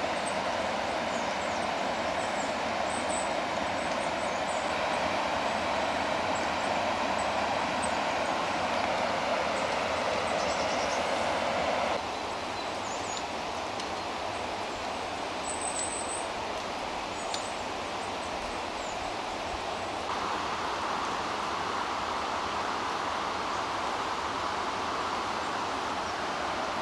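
The River Orchy's flowing water gives a steady rushing noise. The noise steps down suddenly about halfway through and changes tone again later on.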